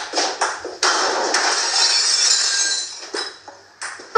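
A few sharp knocks, then a loud shattering crash with tinkling, glass-like debris that fades away over about two seconds.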